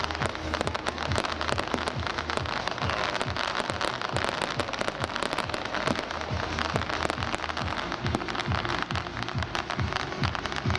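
Fireworks going off in rapid succession: a dense string of pops and bangs over continuous crackling, with music in the background.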